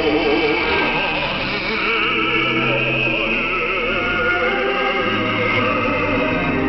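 North Korean revolutionary song with a singer's voice wavering in heavy vibrato over orchestral accompaniment and sustained bass notes. It is heard through shortwave radio reception, narrow-band and with a slightly noisy tone.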